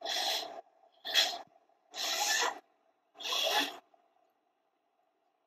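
A person off-camera making four loud, sharp bursts of breath through the nose, about a second apart.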